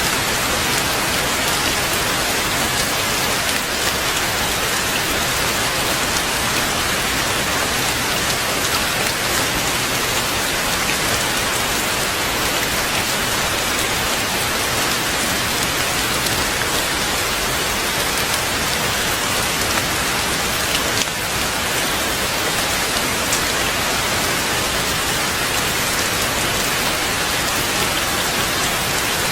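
Steady heavy rainfall, a dense even hiss of drops with no let-up.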